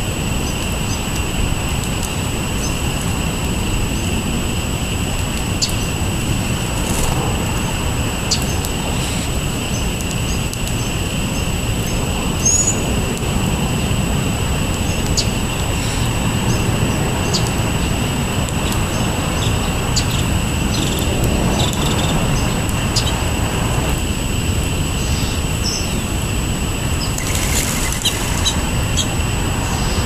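Small songbirds giving short, scattered chirps every second or so over a steady low rumble, with one brief louder burst near the end.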